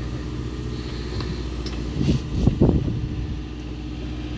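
Fishing boat's engine running with a steady low hum, with a couple of short louder sounds about two and a half seconds in.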